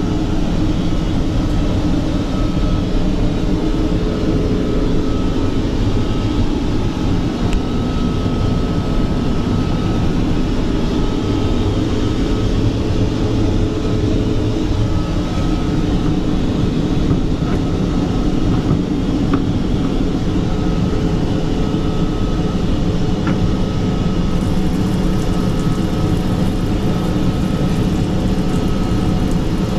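Steady in-flight cabin noise of a Boeing 787 Dreamliner heard inside its lavatory: a constant rush of airflow and engine noise with a faint hum.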